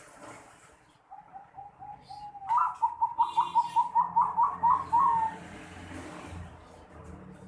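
Zebra dove (perkutut) song with the unusual 'noklak' voice: a few soft notes, then a quick run of about a dozen louder, clipped coos, about five a second, ending a little over halfway through with a slight drop in pitch.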